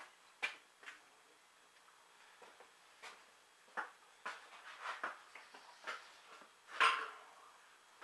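Scattered clicks, knocks and clatters of hand tools being rummaged through while fetching a small screwdriver. The clatters come more often past the middle, with the loudest one near the end.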